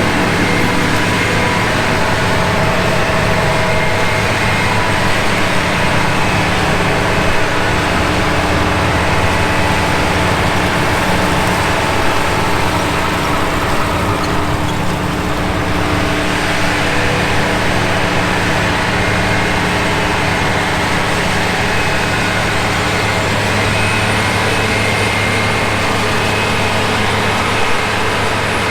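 John Deere 8400i self-propelled forage harvester running steadily under load, a loud, even machine hum. Its low tones shift about halfway through, and a faint high whine rises near the end.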